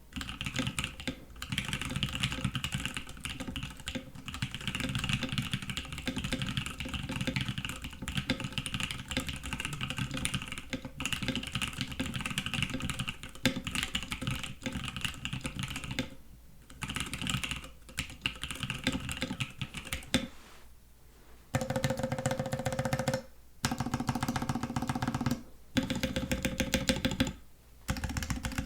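Typing on a Savage 65 mechanical keyboard with Lavender switches and Cannonkeys Esper keycaps, in stock form without tape or polyfill: a dense run of rapid keystrokes, breaking in the last third into short fast bursts with brief pauses between them. The board sounds a little hollow and flat.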